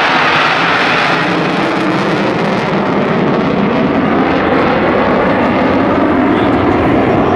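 F-16 fighter jet engine running loudly and steadily, an even rushing jet noise with no break.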